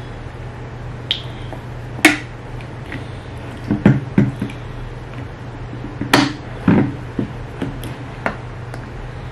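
Plastic sippy cups knocked and set down on a table: a handful of sharp clicks and knocks at irregular intervals, over a steady low hum.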